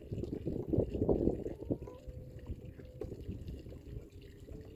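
Water splashing and sloshing at the side of a boat as a big pike is put back in the lake for release. About two seconds in, the splashing eases and a faint steady hum comes in.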